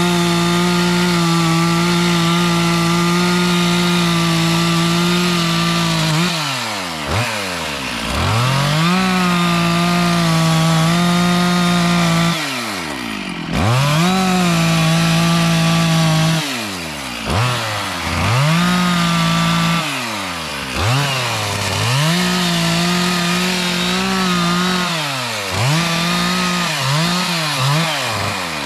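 Two-stroke chainsaw cutting wood at full throttle, its engine held at a steady high pitch for several seconds at a time. The throttle is released and squeezed again about five times, so the engine drops toward idle and revs back up.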